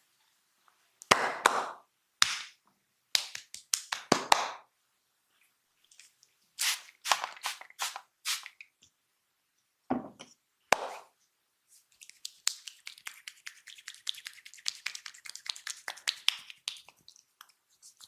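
Massage hand strikes on the body: sharp slaps and cracks in short clusters, then, about twelve seconds in, some five seconds of rapid light tapping.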